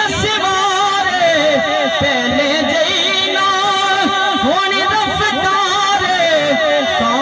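A man singing a Punjabi naat into a microphone over a public-address loudspeaker, drawing out long wavering, ornamented notes.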